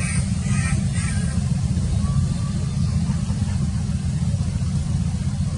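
A steady low rumble, with a few short high chirps in the first second.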